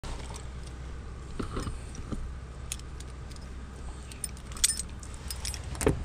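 Keys jingling, with scattered clicks and knocks as a house door is opened. The sharpest jingle comes about three-quarters of the way in, and a knock comes near the end.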